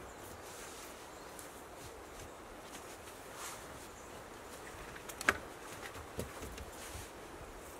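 Hazel rods being worked into a wattle wall, with faint rubbing of wood on wood and one sharp wooden knock about five seconds in, followed by a couple of lighter knocks.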